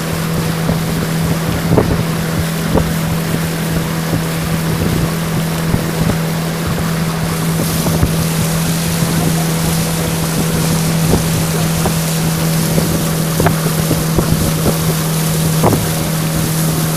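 Wooden river longboat's outboard motor running at a steady pitch, with water rushing along the hull and wind on the microphone. A few light knocks come through on top.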